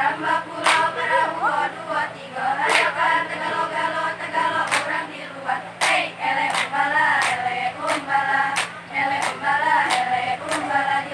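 Group of girls singing a Saman chant in unison, with no instruments, punctuated by sharp hand claps struck together about once or twice a second.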